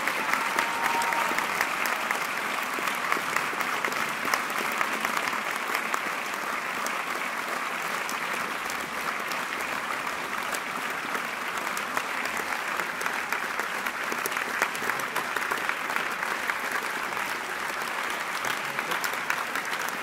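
Large theatre audience applauding steadily, heard from the balcony: a dense, even wash of many hands clapping.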